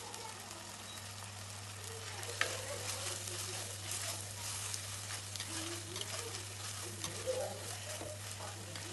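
Onions, ginger-garlic paste and chopped tomatoes sizzling in sesame oil in a kadai while a spoon stirs them, with scattered clicks of the spoon against the pan and a steady low hum underneath.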